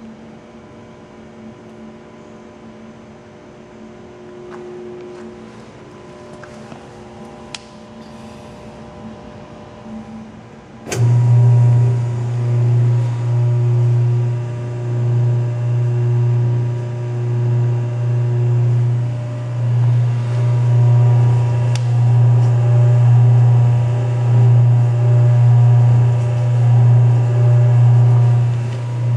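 Benchtop lab blender with a rotating stainless steel vessel: after a faint hum, a click about a third of the way in starts a loud, low motor hum that swells and dips every second or two as the blender runs.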